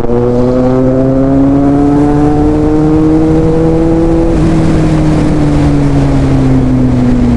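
Kawasaki Z800's inline-four engine under way, its pitch rising steadily as the bike accelerates for about four seconds. The throttle then closes and the engine note slowly falls as it rolls off.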